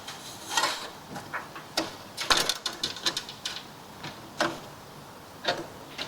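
Band saw blade being worked by hand onto the pulley of a bench-top horizontal metal-cutting band saw: irregular metallic clicks and rattles, with a quick cluster of clicks about two to three and a half seconds in.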